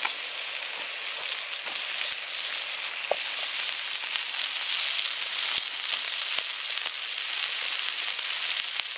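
Sirloin steak sizzling in hot fat in a Trangia camp-stove frying pan, with scattered small pops. The sizzle grows a little louder about halfway through, as asparagus spears are laid into the pan.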